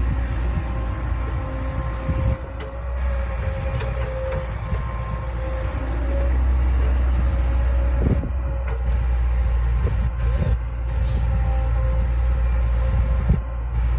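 CAT E120B excavator's diesel engine running steadily under a steady whine, with a few clunks, about two seconds in, about eight seconds in and near the end.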